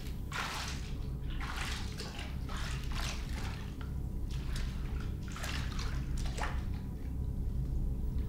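Bathwater sloshing and splashing in a clawfoot bathtub as a person moves in it: a series of irregular splashes over a low steady hum.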